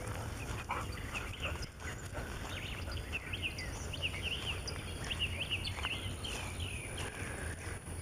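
Birds chirping in a quick run of short whistled notes, over a low steady rumble.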